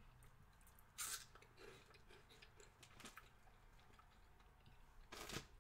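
Faint chewing of crunchy cheese puffs, with two short, louder crunches: one about a second in and one near the end.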